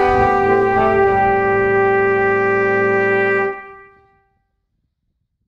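Background music: a brass ensemble of trumpets and trombones changes chord about a second in, holds a final chord, then breaks off about three and a half seconds in and dies away to silence.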